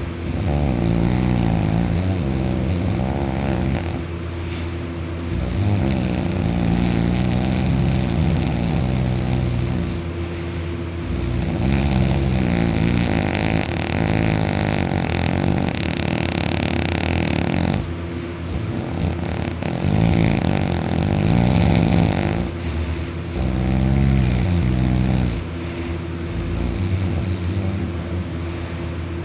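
A man snoring very loudly in deep sleep, on his back with his mouth wide open. There is a long, rasping snore on each breath, repeating every four to eight seconds.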